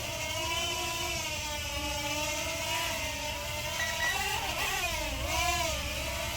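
JJRC JJ850 quadcopter's motors and propellers whining in flight. The pitch wavers up and down with throttle, with a deeper dip and rise about four to five seconds in.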